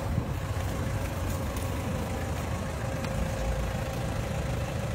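SUV engine idling: a steady low rumble with a faint constant hum over it.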